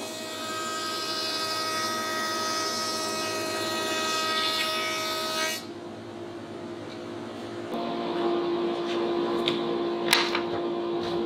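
JET thicknesser running, planing a thin board, a steady motor whine under the hiss of the cut. The cutting hiss stops abruptly about halfway through, leaving a quieter steady running sound. A sharp knock comes near the end.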